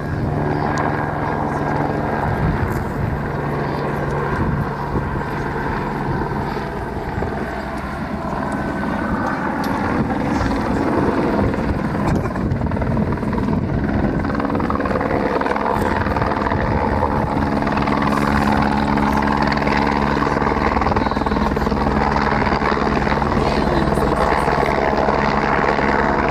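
Helicopter in flight with a load slung beneath it: a steady beat of the rotor blades, growing louder through the middle as it draws closer.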